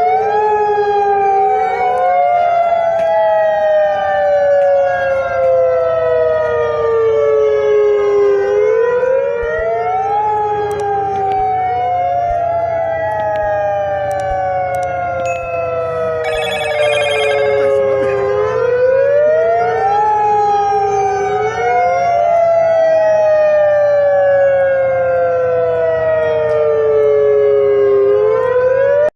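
Outdoor emergency warning siren wailing in repeated cycles: the tone sweeps up quickly, then slides slowly down over about eight seconds, starting again about every ten seconds, with offset, overlapping copies of the wail. The siren is sounding an alert after a strong earthquake. A brief high trilling sound comes a little past halfway.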